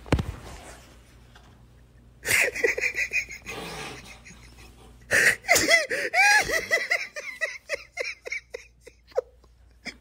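A young man laughing hard, with wheezing gasps. One burst of laughter comes about two seconds in, and a longer run of quick repeated laughs follows from about five to nine seconds. A thump sounds right at the start.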